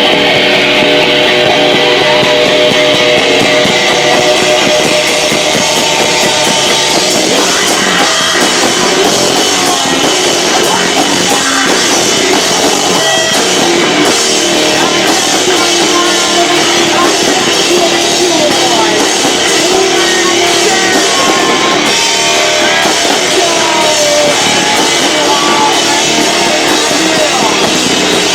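Live rock band playing loud: electric guitar, drum kit and singing, kicking in abruptly. It is recorded on a camcorder microphone that is overloaded by the volume, so the sound is distorted.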